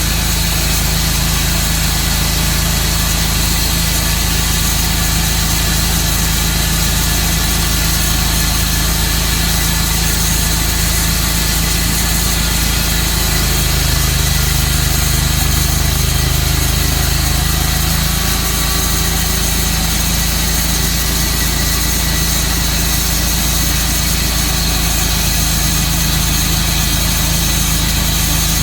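Sawmill engine running steadily, with its low hum shifting for a few seconds around the middle.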